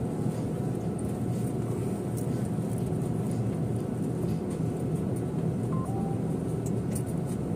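Steady rumble of an airliner cabin. About six seconds in come two brief faint tones, the second one lower.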